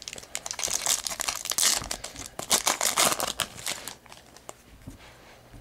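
Foil wrapper of a trading card pack crinkling as it is torn open, a rapid run of crackles for about four seconds that then dies away.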